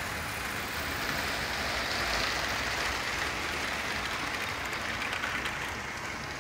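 Hornby Live Steam model locomotive Papyrus running along the track with its coaches: a steady hiss of live steam mixed with wheel-on-rail noise, swelling a little about two seconds in.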